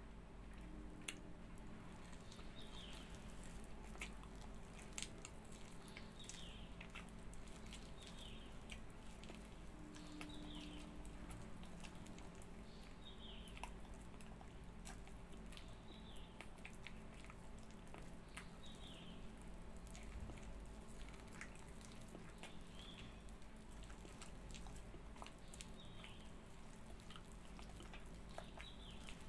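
Faint wet chewing and sucking as the soft, fibrous pulp of a ripe palmyra palm (tala) fruit is eaten, with many small mouth clicks. A short, high chirp falling in pitch repeats about every one to two seconds behind it.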